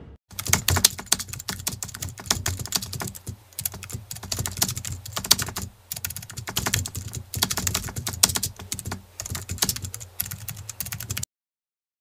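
Computer keyboard typing: rapid, continuous key clicks that cut off suddenly near the end, a typing sound effect laid over text being typed out on screen.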